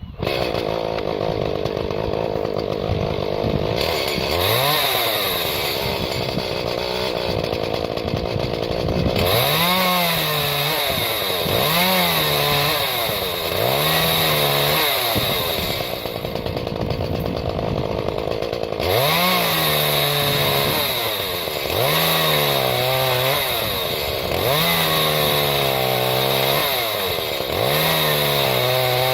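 Chainsaw engine running in a homemade stand, idling and then revving up again and again. Each rev holds for about a second and a half before dropping back, about every two seconds, as the stand's lever opens the throttle when wood is pressed against it.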